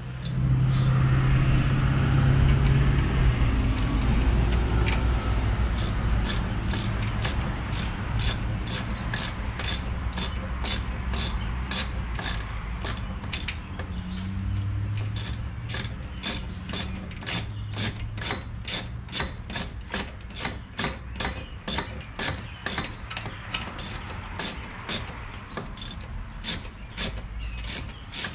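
Hand ratchet wrench clicking steadily as it turns a bolt to mount an oil catch can bracket, the clicks growing more distinct toward the end. A louder low rumble sits under the first few seconds.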